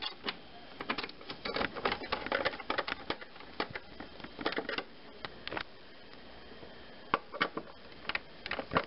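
A 1/4-inch nut driver turning small hex-head screws into a washing machine's sheet-metal control console, with irregular clicking and ticking from the driver and screws. The clicking goes quiet about two thirds of the way through, and a few more clicks come near the end.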